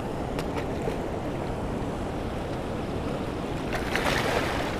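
Steady rush of high water gushing over a concrete spillway and running fast past a rocky bank, with some wind on the microphone. A brief louder hiss swells up about four seconds in.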